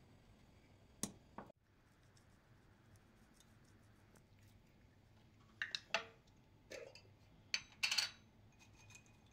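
Scattered sharp clicks and clinks of kitchen utensils and containers while spices are added to a pot of raw beef and onions: two about a second in, then a quick cluster in the second half, the loudest near the end.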